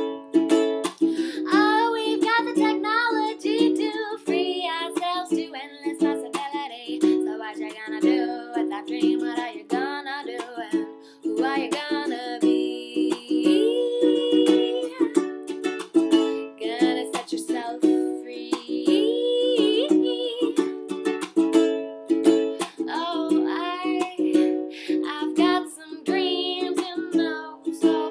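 Ukulele strummed in a steady rhythm, with a woman singing over it.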